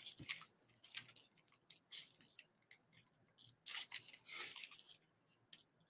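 Faint, scattered snips of scissors cutting soft, pliable plastic, with a few light rustles of the plastic being handled.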